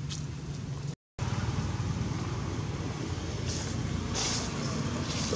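Steady low outdoor rumble with hiss. It cuts out completely for a moment about a second in. A few bursts of higher hiss come near the end.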